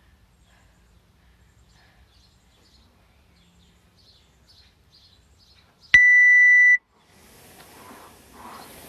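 One long electronic beep, a steady high tone lasting just under a second, about six seconds in, typical of an interval timer or rower monitor signalling a round. About a second later a hiss with a slow, even pulse begins, heavy breathing as the next effort starts.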